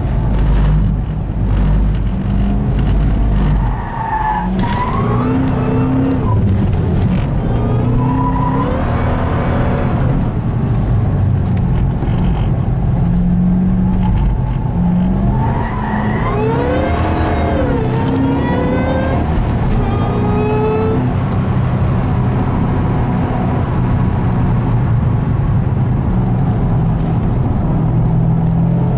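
Ford Shelby GT500's supercharged V8 heard from inside the cabin, its pitch rising and falling repeatedly as the car is driven hard through corners, with the tyres squealing at times.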